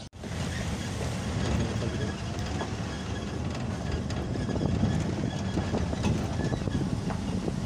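Ford Ranger pickup driving on a rough rural road: a steady low rumble of road and engine noise, with scattered light rattles and clicks.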